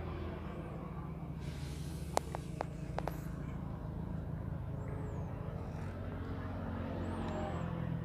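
Steady low motor hum, even and unchanging, with a few light clicks about two to three seconds in.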